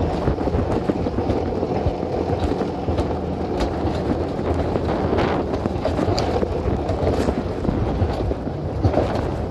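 Alpine coaster sled running down its tubular steel track: a steady rumble of the wheels on the rails, with a few sharp clicks and wind on the microphone.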